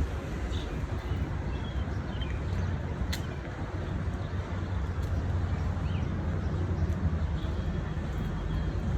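Steady low rumble of city traffic, with a few faint, short high chirps over it.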